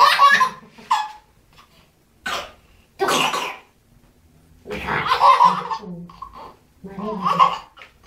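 A person's voice in about six short, breathy, cough-like outbursts with pauses between them.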